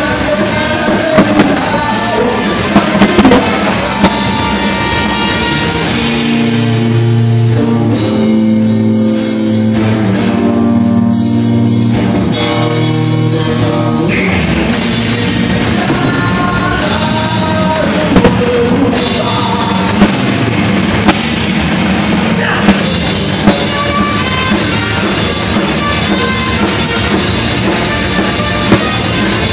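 Live rock band playing loud: electric guitar, drum kit and a trumpet and saxophone horn section, with singing. Held horn notes come in around a quarter of the way through, and drum hits punch through the mix throughout.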